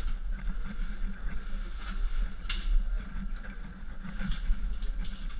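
Low rumble of a head- or body-mounted action camera being jostled, with scrapes and a few sharp knocks as a caver clambers through a narrow rock passage.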